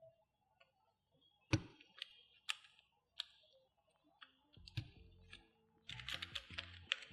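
Sharp clicks and snaps of a Keychron Q1 V2 mechanical keyboard being assembled, parts pressed into place: a few spaced clicks, then a quick cluster near the end. Background music comes in about halfway through.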